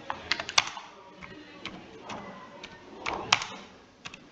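Typing on a computer keyboard: a run of irregular key clicks, a few each second, as a short line of text is keyed in.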